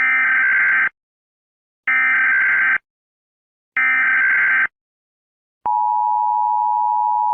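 Emergency Alert System SAME header: three short bursts of screeching data tones about two seconds apart, marking the start of an emergency alert. Then, about five and a half seconds in, the steady two-tone EAS attention signal starts.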